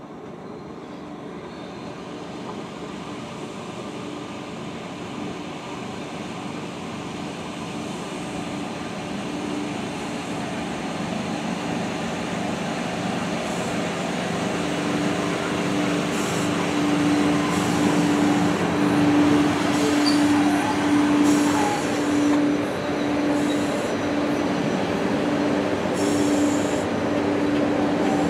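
VR Sr1 electric locomotive hauling a freight train of open wagons, approaching and passing close by. A steady hum grows steadily louder, and from about halfway in the rolling noise of the wagons comes with scattered sharp clicks from the wheels.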